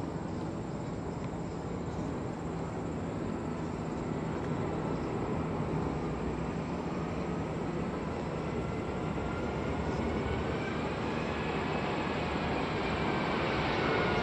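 Airbus A380's four jet engines on final approach, a steady rumble that grows gradually louder as the airliner nears. Over the last few seconds a whine rises and then starts to drop in pitch.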